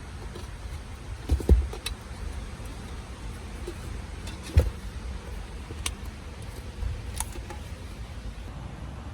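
Wind rumbling on the microphone, with a few scattered knocks and metallic clinks of gear being handled. The loudest are a double thump about one and a half seconds in and a single thump about four and a half seconds in.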